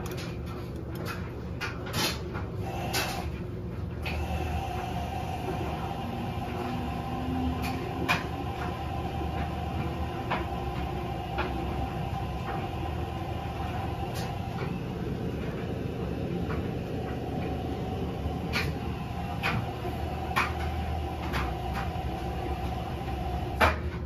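LG front-load washing machine drum tumbling a load of clothes: a steady motor hum and rumble with irregular clicks and knocks as the clothes and their fasteners fall against the drum. A steady whine joins about four seconds in and fades out about ten seconds later.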